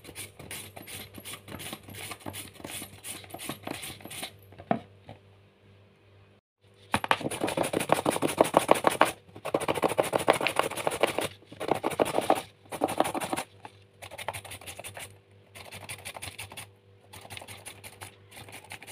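A peeled carrot being shredded on a green plastic hand grater over a plastic bowl: rapid rasping strokes in runs, with a pause about five seconds in. The strokes are loudest from about seven to eleven seconds in.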